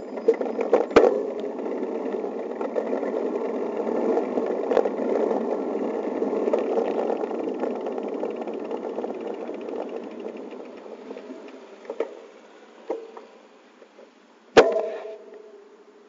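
Wind and rolling noise of a moving bicycle on the camera's microphone, building as the bike gets going and fading away as it slows to a stop near the end. A few clicks run through it, and one sharp knock comes near the end.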